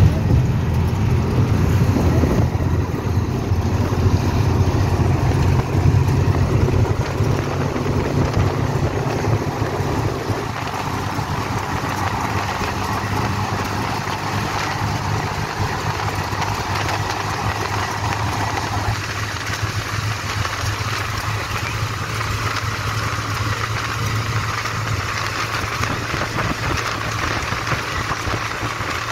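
Bus travelling at speed, heard from inside through an open side window: steady engine drone with road and wind noise. The low rumble is heavier for the first ten seconds or so, then settles into a steadier drone.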